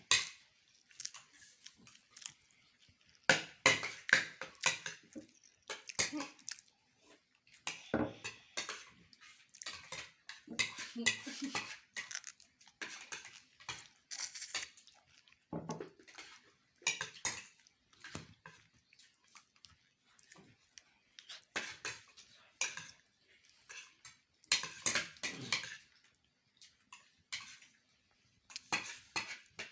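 Cutlery clinking and scraping on plates in irregular short clicks, with some chewing, as several people eat rice and meat quickly.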